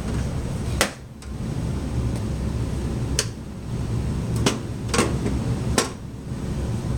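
Five sharp knocks and clicks, spaced irregularly, over a steady low rumble, as the new dehumidifier and its packing are handled.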